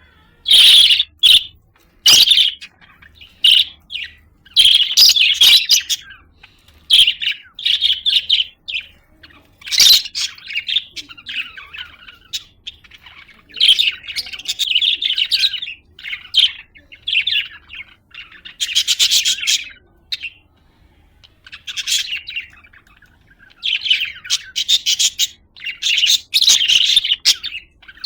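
Budgerigar chirping and warbling in bursts of fast chatter a second or two long, separated by short pauses.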